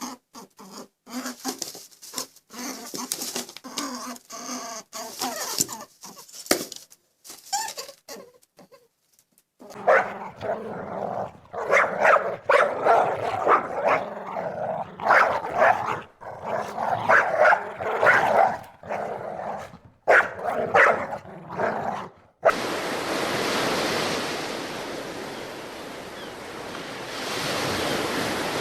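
A dog barking and whining in loud, repeated calls, after some quieter scattered sounds. It is followed by a steady rushing noise that continues to the end.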